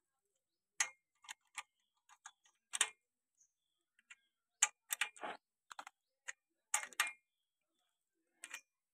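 Ratchet socket wrench clicking in short, irregular runs as a bolt is tightened to draw the worn centre-pin bush out of a tractor's front axle I-beam.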